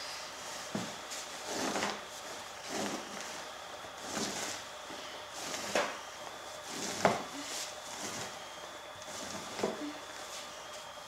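Two-handled fleshing knife scraping down a lynx pelt stretched over a wooden fleshing beam, about seven separate strokes spaced a second or so apart. The hide is dusted with sawdust to soak up fat and grease.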